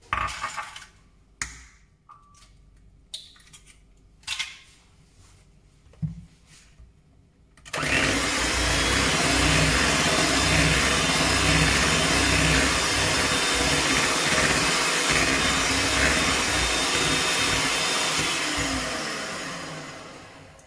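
A few sharp knocks and clinks, then a Kenwood electric hand mixer switches on about eight seconds in and runs steadily, beating an egg into creamed butter and sugar in a plastic bowl. Near the end the motor winds down, falling in pitch as it slows.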